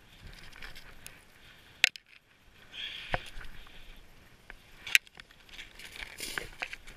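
Boots crunching and scraping on crusted, slushy ice and snow, with a few sharp knocks about two, three and five seconds in.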